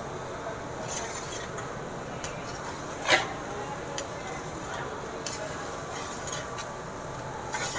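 A spatula stirring and scraping in a cooking pan while food sizzles, with light clicks throughout and one sharp clink about three seconds in.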